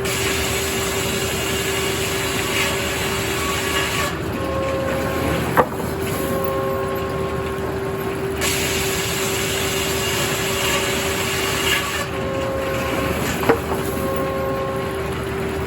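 Sawmill machinery running with a steady mechanical hum, while higher whines switch on and off every few seconds. Two sharp knocks come about five seconds in and again near the end.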